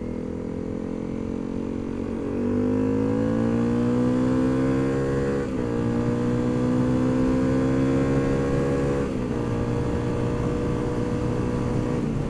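Honda CRF250L's single-cylinder four-stroke engine pulling under way: its pitch climbs steadily from about two seconds in, dips sharply at a gear change about halfway, climbs again, then drops at about nine seconds in and runs steady.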